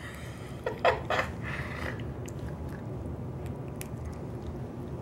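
A cat's mouth noises, smacking and chewing-like clicks, while its jaws are held open to be pilled. There are two short louder sounds about a second in, then faint scattered clicks.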